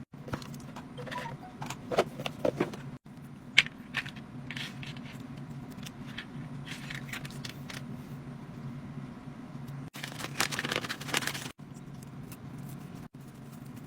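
An Anker charger and its packaging being handled: scattered clicks, taps and rustles, then a denser patch of rattling and rustling about ten seconds in, over a steady low hum.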